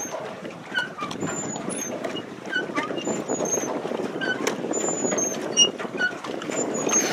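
Pedal boat's paddle wheel churning and splashing water steadily, with short high chirps dotted throughout.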